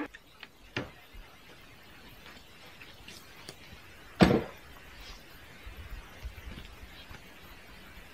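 Faint sounds of camp gear being moved about: a few light knocks and one louder knock or clatter about four seconds in, over quiet outdoor background.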